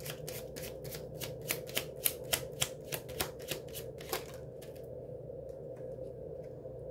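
An oracle card deck being shuffled by hand: an even run of card clicks, about three or four a second, that stops about four seconds in and is followed by a few faint ticks.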